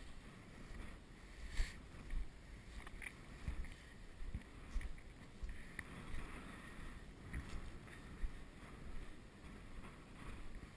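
Wind buffeting the camera microphone as a low, uneven rumble, with footsteps in dry sand and clothing rustling at a walking pace.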